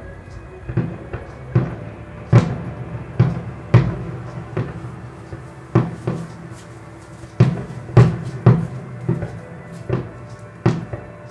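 Aerial firework shells bursting in a display, a rapid, irregular series of sharp bangs, more than a dozen in about eleven seconds.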